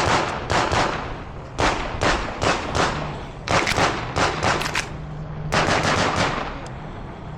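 Pistol shots fired in rapid strings, about four bursts of four to seven shots each with short pauses between, as in a competitor shooting through a stage's target arrays.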